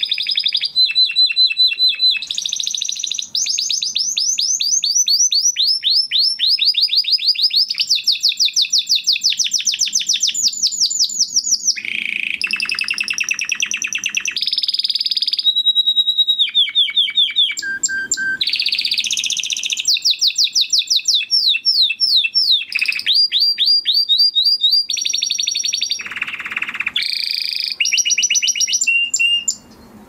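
Spanish Timbrado canary singing without pause, a string of rapid trills and evenly repeated notes that switches to a new trill every second or two, with one lower-pitched run about two-thirds of the way through. The song breaks off just before the end.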